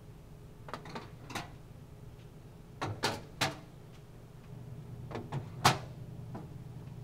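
Short sharp knocks and clacks in three quick groups, about ten in all, the loudest near the end, over a low steady hum.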